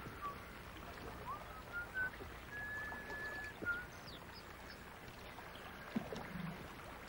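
Canoe drifting on a river: soft water sounds around the hull, with a few thin whistled notes, one held for about a second near the middle.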